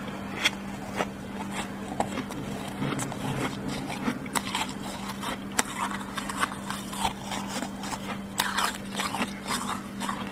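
Crisp, irregular crunching and scraping of thick freezer frost, a run of sharp crackles, over a steady low hum.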